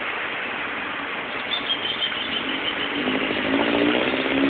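Cars driving through a flooded street, their tyres pushing through standing water with a steady wash of splashing. About three seconds in, an approaching vehicle's engine comes up, rising in pitch and growing louder.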